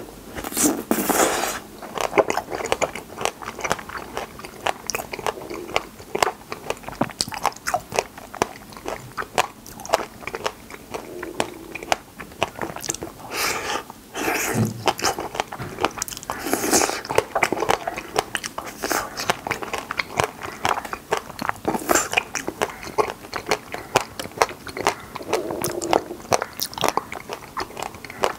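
Close-miked biting and chewing of wild raspberries pulled off wooden skewers: a dense run of small wet clicks, with several louder bites spread through.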